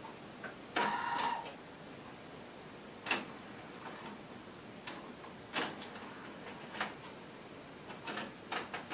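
Pioneer CT-M6R six-cassette changer mechanism clicking and clunking as it switches from one cassette to the next: a longer rattle about a second in, single clicks every second or so, and a quick run of clicks near the end, over a low steady hiss.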